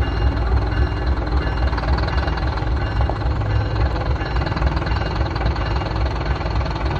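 GE Dash-9 diesel-electric locomotive's engine running with a steady, pulsing low rumble as the locomotive backs away at low speed.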